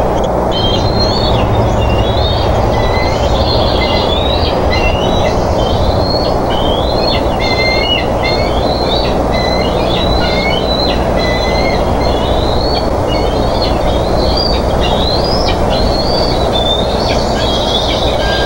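Juvenile bald eagles giving rapid, high chirping calls without a break, over a steady low rumble and hum from the nest-cam microphone.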